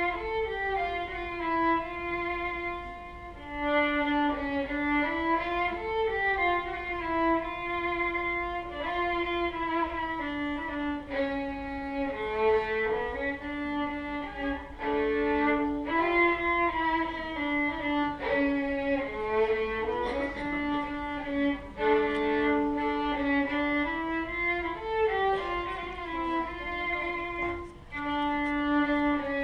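Solo violin bowing a slow melody in D minor, one held note at a time, each note lasting about a second.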